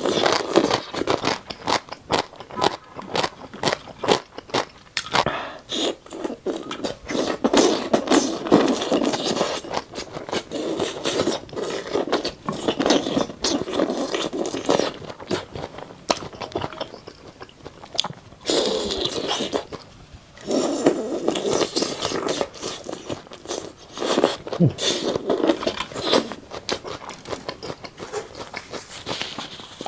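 Close-miked eating sounds: crunchy biting and chewing of red-oil bobo chicken skewer food, in runs of quick crunches with short pauses between mouthfuls.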